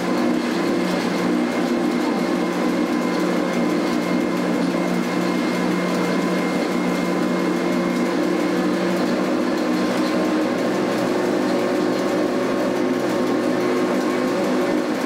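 Electric rack railcar of the Bayerische Zugspitzbahn running at a steady speed: an even, constant whine from its traction motors and gearing over the rumble of the wheels on the track, heard inside the cab.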